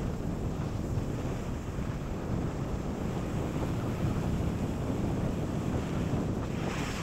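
Wind buffeting the microphone of a camera carried by a skier on a fast run, a steady low rumble, with the hiss of skis sliding on groomed snow that grows brighter near the end.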